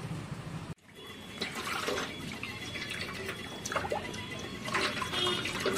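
Hands sloshing and swishing a raw chicken around in a metal bowl of water, with small splashes and drips. It opens with a moment of rubbing as the chicken's skin and feathers are pulled off, which cuts off abruptly less than a second in.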